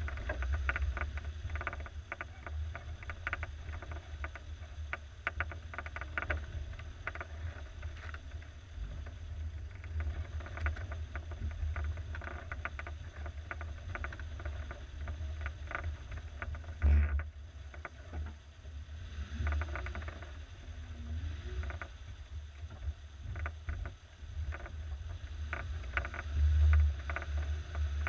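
1987 Suzuki SJ413 off-roader driving over a rutted, muddy forest trail: a low engine and drivetrain rumble with frequent clatter and knocks as the vehicle jolts over the ground, and a heavier thump a little past the middle.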